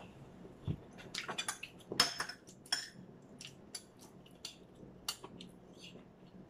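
Metal spoon clinking and scraping against a plate while eating: a scatter of light clicks, busiest in the first three seconds and thinning out after.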